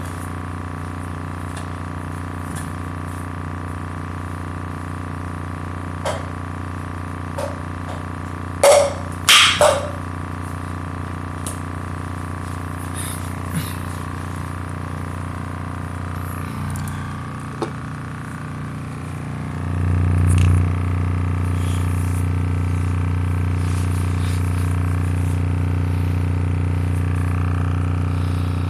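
A 6.5-inch midbass speaker driver in free air playing a steady low bass tone, its cone moving hard, heard as a buzzing hum with steady overtones. The tone steps up in level about twenty seconds in. A few brief sharp noises cut through about nine seconds in.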